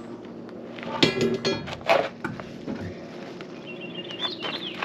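Outer dual wheel of a pickup clanking and scraping against the hub and wheel studs as it is worked off by hand: a ringing metallic scrape about a second in, then a sharp knock just before two seconds.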